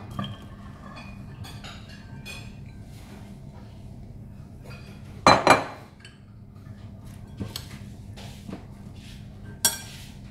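Ceramic bowls and a metal spoon clinking and knocking as shredded cabbage is tipped from one bowl into another and a spoon is taken up to stir it. Light clicks and scrapes throughout, with two loud knocks close together about halfway through and another sharp clink near the end.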